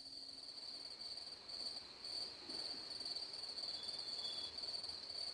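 Crickets trilling steadily at a high pitch.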